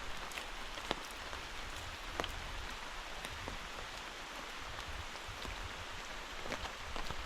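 Steady rain falling, with scattered sharper drop impacts standing out now and then.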